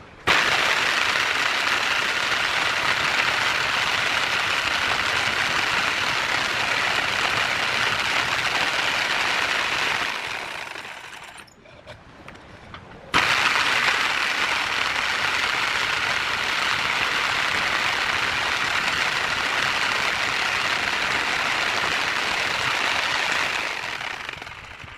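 Electric hand drill running twice at full speed, each run about ten seconds long, starting abruptly and winding down when released.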